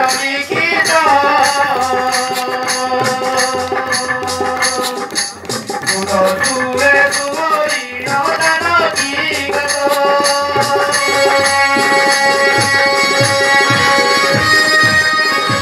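Live music with drums and rattling percussion keeping a fast, steady beat under a melody line. From about eleven seconds in, the melody settles into long held notes.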